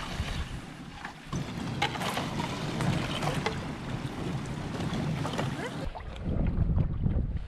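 Royalex canoe hull pushing through slush and broken lake ice: ice crunching and scraping along the hull with many small scattered clicks, over wind buffeting the microphone.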